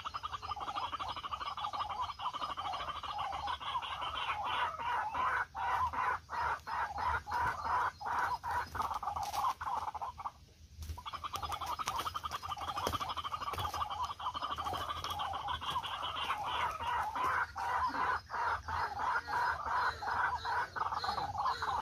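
A bird giving a rapid, unbroken run of clucking calls, with one short pause about ten seconds in.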